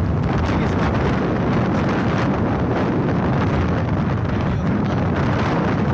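Steady wind rushing over the microphone while riding at speed, with the low rumble of the moving vehicle and road beneath it.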